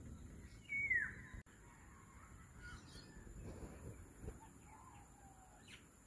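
Oriole calling: one loud call sliding downward in pitch about a second in, then a few fainter, lower calls.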